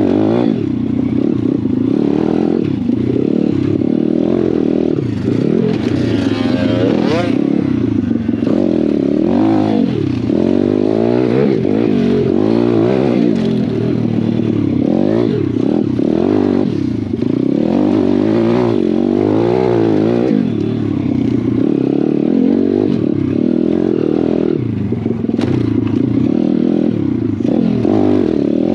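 Pit bike engine revving hard under way, its pitch climbing and dropping over and over as it is ridden.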